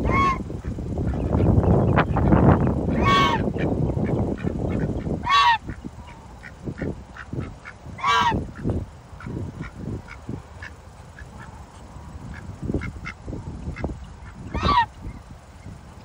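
White Chinese geese honking: five loud calls spaced a few seconds apart, each falling in pitch at its end. A low rushing noise runs under the first five seconds, and faint ticks come between the later calls.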